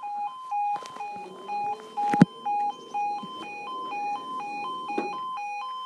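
Level crossing warning alarm sounding its two-tone yodel, a lower and a higher tone alternating about twice a second, as the crossing barriers lower. A sharp knock is heard about two seconds in.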